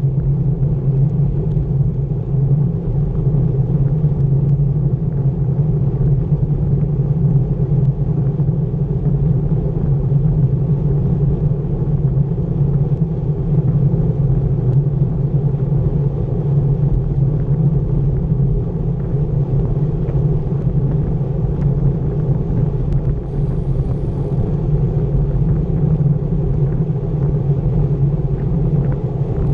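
Steady wind rush and road rumble from riding a road bike at about 23 mph, heard through a bike-mounted camera's microphone.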